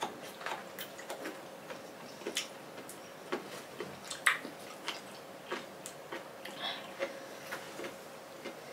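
Two people eating soft jackfruit bulbs close to the microphone: chewing with irregular mouth smacks and clicks, a few a second.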